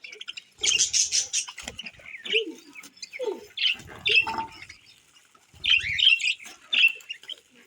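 Small pet birds chirping and squawking in short, irregular bursts, several calls overlapping at times.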